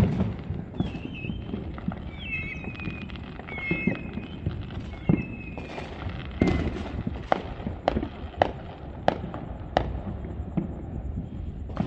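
Distant fireworks going off in a string of bangs that echo, the loudest at the start and about six and a half seconds in, coming in quicker succession in the second half. A high wavering tone sounds during the first half.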